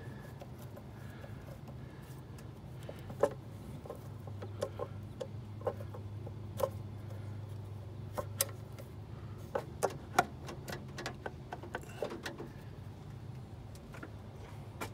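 Scattered small metal clicks and clinks of a hand tool and hose clamps as hose clamps are loosened on an engine, over a low steady hum.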